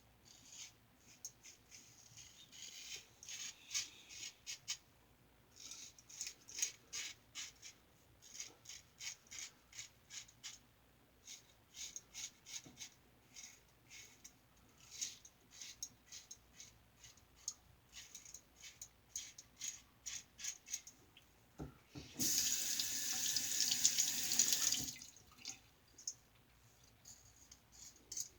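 Single-edge Star Super Six lather-catcher safety razor with a Gem blade scraping through lathered stubble in many short strokes. About three-quarters of the way through, a water tap runs for about three seconds, the loudest sound.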